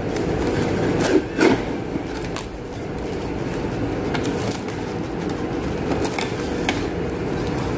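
Plastic cling wrap being pulled from its box and pressed over a glass bowl, with several sharp crackles of the film, over a steady background hum.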